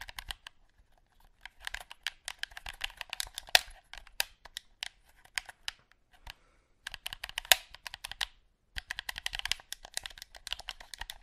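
Buttons clicking rapidly in irregular runs with short pauses, the sound of a video game being played by mashing the buttons.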